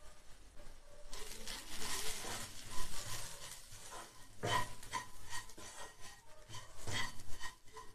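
Spatula stirring and scraping onion-tomato masala and freshly added ground spices around a nonstick kadai, starting about a second in, with knocks of the spatula on the pan, two louder ones about halfway and near the end.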